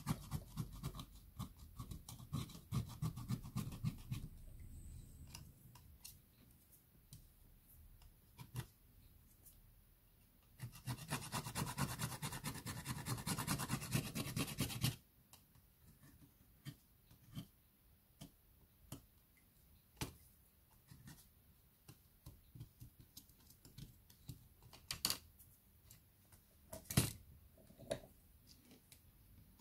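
Rapid scratching strokes from a hand tool working on a tablet during repair, in two spells: about the first four seconds, and again from about ten to fifteen seconds in. After that come scattered small clicks and taps.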